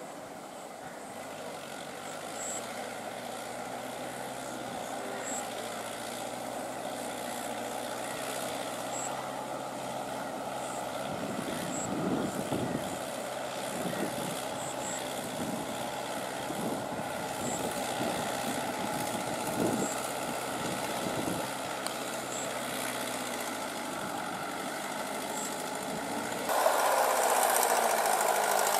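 Mahindra tractor's diesel engine running steadily as its cage wheels churn through a flooded, muddy paddy, with splashing of water and mud. The engine becomes suddenly louder near the end.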